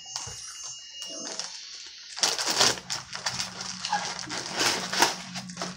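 Rustling, crinkling and scraping of food packaging handled close to the microphone, loud and busy from about two seconds in, over a steady low hum.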